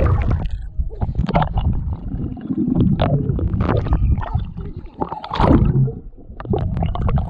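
Muffled, rumbling underwater sound of a swimmer blowing bubbles, with irregular gurgling and splashing as the water breaks around the surface.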